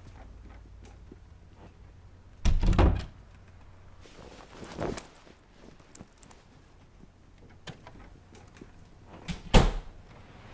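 A door thudding shut a few seconds in, followed by a softer knock and then a sharp thump near the end, over a faint low hum.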